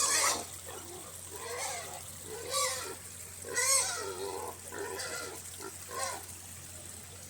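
Pigs grunting and squealing in a string of short calls, with louder, noisier squeals at the very start and at about two and a half and three and a half seconds in.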